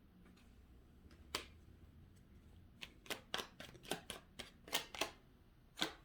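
Tarot cards being handled: a run of sharp, light card clicks and snaps, one early, a quick cluster of about ten in the middle, and one more near the end.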